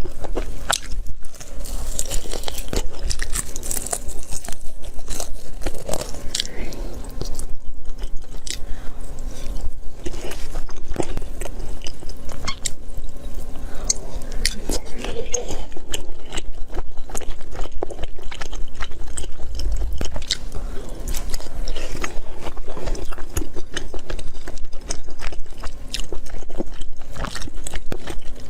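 Close-miked chewing and crunching of food, with bites and wet mouth sounds, a dense irregular run of crunches throughout.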